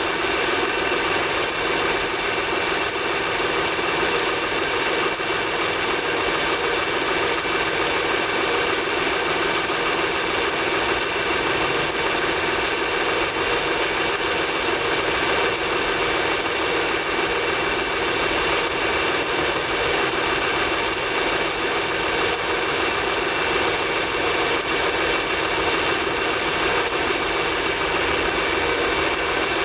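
Honda Pilot V6 engine running cold with a rapid, steady mechanical ticking knock that goes away once the engine is warm.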